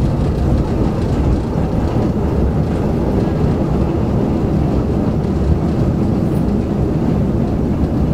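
Malayan Railway passenger train running, a steady low rumble of wheels on rail with no distinct beats.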